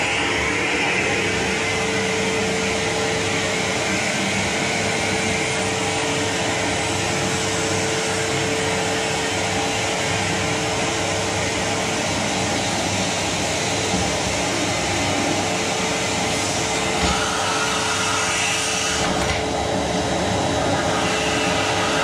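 Rowenta vacuum cleaner running steadily: a constant rushing noise with a steady whine in it.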